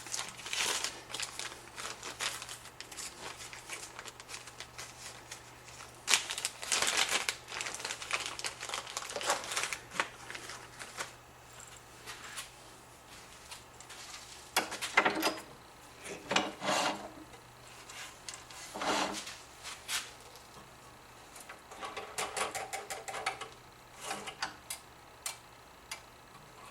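Irregular clicks, rattles and scrapes of small parts being handled at a wood lathe: metal pen-turning bushings slid off the mandrel and plastic bushings fitted in their place. A faint steady low hum runs underneath.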